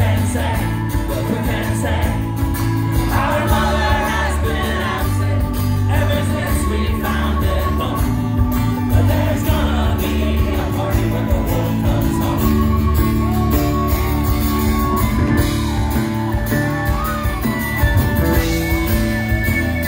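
A live rock band playing with singing: acoustic guitar, electric bass, drums and piano, recorded from within the audience in a concert hall.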